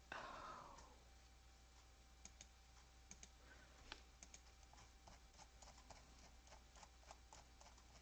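Faint, irregular computer keyboard typing and clicking, a few keystrokes a second, over a quiet room. A short, louder whoosh comes right at the start.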